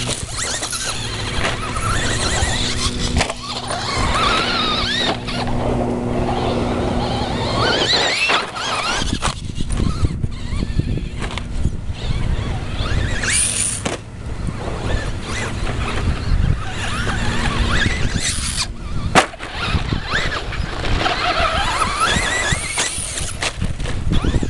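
Traxxas Slash 2WD radio-controlled trucks running on a dirt track: their motors whine, rising and falling in pitch as they rev and let off, over a haze of tyre and dirt noise. A couple of short bursts of hiss fall near the middle and a sharp click comes about three-quarters of the way through.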